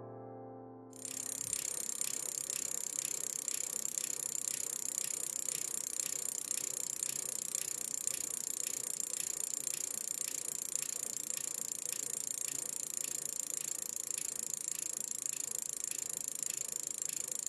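Bicycle freehub ticking evenly as the bike coasts, over a steady hiss of riding noise.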